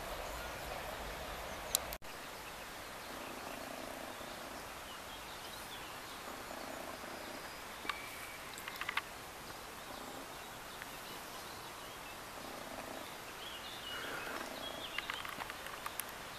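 Rural outdoor ambience: steady background hiss with scattered short bird chirps and a few faint clicks in the middle and near the end.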